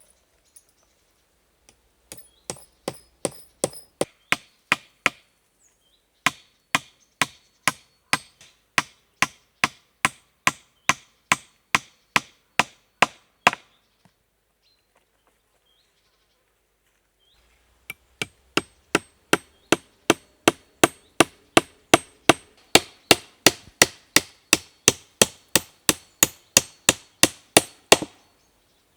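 A hand tool striking wood in a steady rhythm, about three blows a second, in two long runs with a pause of about four seconds between them.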